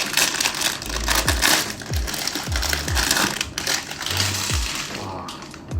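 Background music with a steady beat, over the crinkling and rustling of blind-box packaging being opened and handled.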